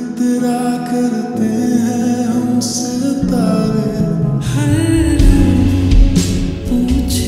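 Background music: a song with singing, a low bass part coming in about three seconds in.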